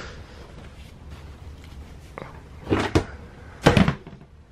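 Clothes rustling in a plastic storage tote, then the tote's plastic lid being put on: two sharp plastic clacks a little past halfway and a louder clunk near the end.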